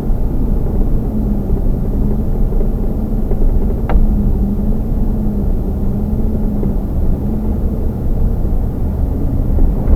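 A car driving along, its engine and road noise a steady low rumble with a slightly wavering engine tone. A single brief click sounds about four seconds in.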